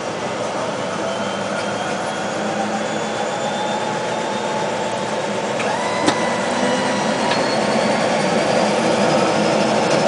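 Pratt & Whitney PT6A turboprop engine of a DHC-6 Twin Otter winding up during engine start as its propeller comes up to speed, heard from the cabin: a steady rushing noise that slowly grows louder, with faint whines rising in pitch. About six seconds in there is a sharp click, and a steady tone sets in.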